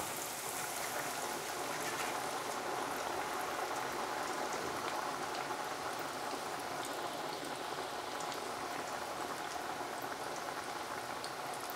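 Battered pork rib chunks deep-frying in hot oil in a wok: a steady bubbling sizzle with fine crackles throughout.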